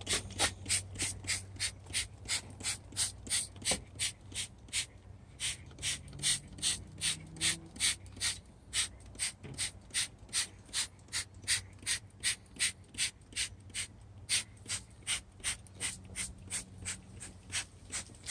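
Hand trigger spray bottle squeezed over and over, about three short spray hisses a second, misting diluted degreaser.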